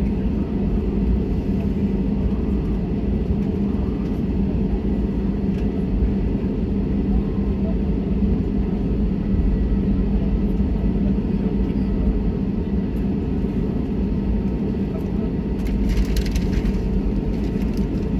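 Steady low rumble of an Airbus A320-family airliner heard from inside the cabin as it taxis, with a constant hum under it. A brief crackle near the end.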